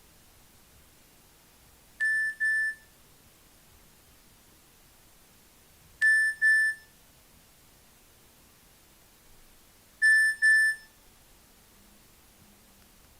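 Nokia 6500 Classic mobile phone tone: a single-pitched double beep, sounded three times about four seconds apart.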